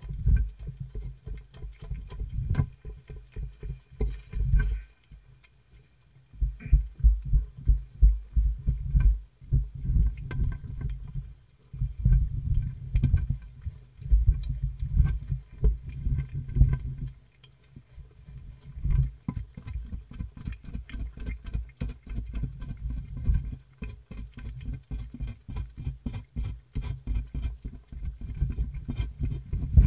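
Cats licking and chewing canned cat food off a clear plastic box right over the microphone: rapid low thumps of tongues and jaws on the plastic, several a second, stopping briefly a few times.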